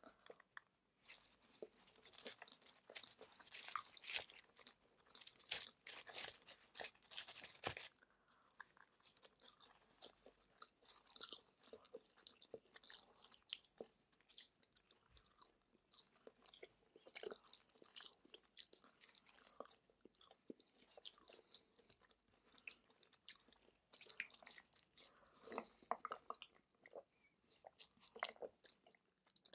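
Close-miked biting and chewing of pizza slices, quiet throughout: irregular crisp crackles of the crust, with soft wet chewing sounds and a few louder crunchy bites.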